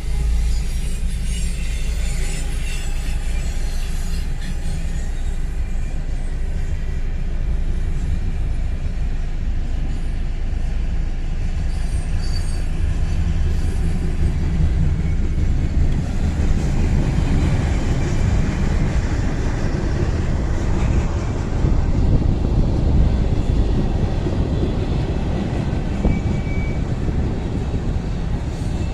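Train passing close by: a steady, loud rumble of its cars rolling over the rails, growing fuller about halfway through.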